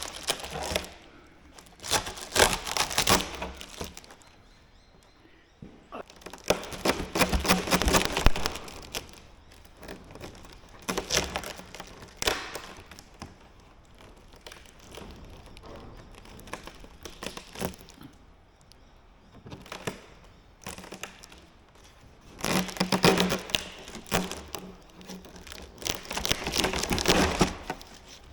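Bursts of crinkling, crackling and knocking as the aircraft windscreen and its packaging are handled, five bouts of a second or two with quieter pauses between.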